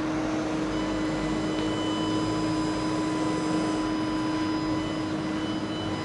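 Steady machine-like hum and hiss with a constant low tone, the kind of even drone a fan or air conditioner running in a room gives.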